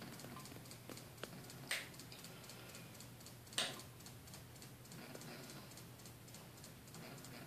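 Faint steady hum of a fan motor spinning a disc golf disc, with light ticking at an even pace several times a second. Two short hissy sounds come about two and three and a half seconds in.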